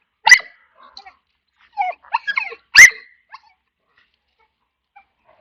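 A dog barking: two loud, sharp barks about two and a half seconds apart, with a run of softer, shorter dog sounds between them.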